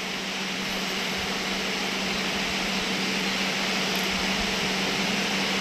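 A steady, even rushing noise with a low steady hum underneath, swelling slightly at the start and then holding level.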